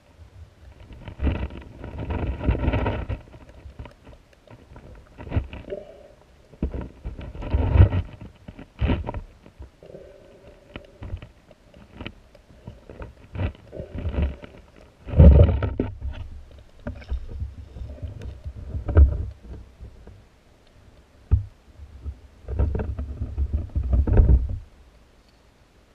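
Underwater sound of a river picked up through a submerged camera housing: irregular gushes of moving water with low rumbles and a few sharp knocks, every few seconds. The loudest comes about fifteen seconds in.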